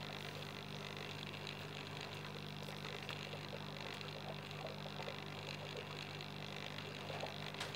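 Aquarium pump humming steadily, with faint scattered ticks of water bubbling over it.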